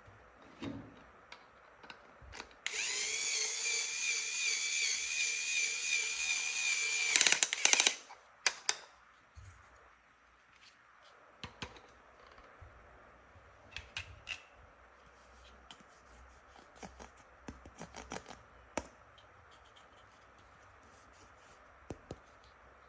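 Toy electric drill's sound effect running for about four and a half seconds as a steady pitched whir, then stopping with a few loud clicks. Scattered small plastic clicks and taps follow.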